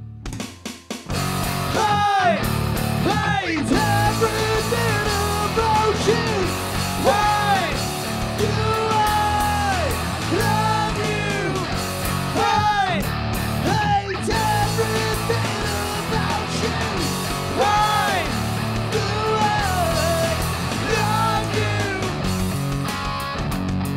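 Live rock band playing: distorted electric guitar, bass guitar and drums, with a lead singer singing and yelling over them. The band stops briefly at the start and comes back in full about a second in.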